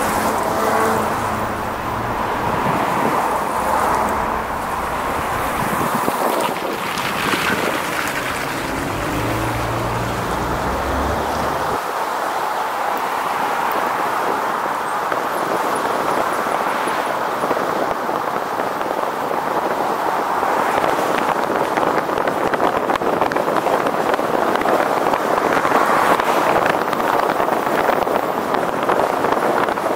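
Wind rushing over the microphone of a moving camera, over steady street traffic and road noise; a low rumble underneath fades out about twelve seconds in.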